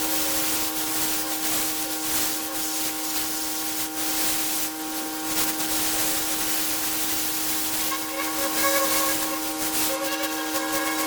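Pressure washer running steadily, a constant whine under the loud hiss of the high-pressure water spray.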